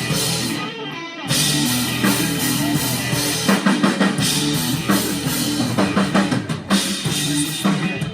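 Rock music: a drum kit beat with guitar, breaking off briefly about a second in before picking up again.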